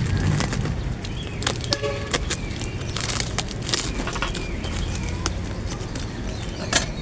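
Packing tape and cardboard being cut with scissors and torn open, with irregular snips, crackles and rustles over a steady low rumble.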